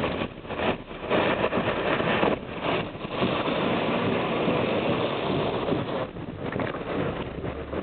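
A vehicle running with a low engine hum under a loud, uneven rushing noise that swells and dips every second or so.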